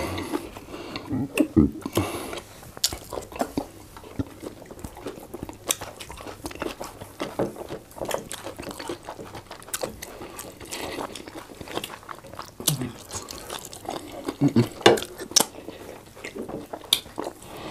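Wet chewing and lip smacking from people eating soft pounded yam with efo riro spinach soup and meat by hand, with many short sticky clicks and smacks.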